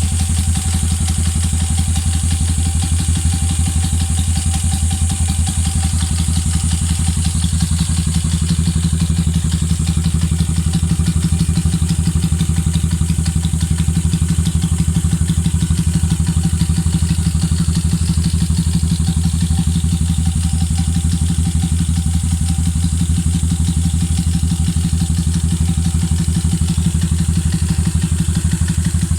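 Honda TMX155 motorcycle's single-cylinder four-stroke engine idling steadily, the exhaust beat even with no revving.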